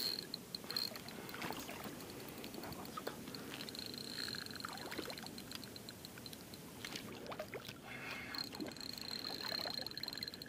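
Lakeside ambience: faint lapping water with light clicks and rustles of fishing tackle being handled. A high, steady trill comes and goes, heard near the start, about four seconds in, and again toward the end.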